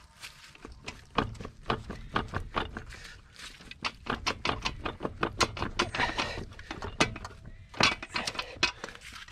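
A hand ratchet clicking in quick, irregular runs as bolts holding the transfer case to the transmission are backed out.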